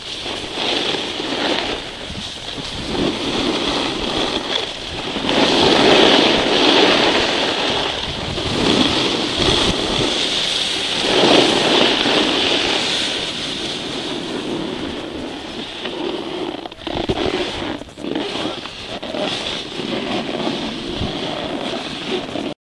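Wind rushing over the microphone while snowboards slide and scrape over the snow during a run down a ski slope. The noise swells and fades with speed and cuts off suddenly near the end.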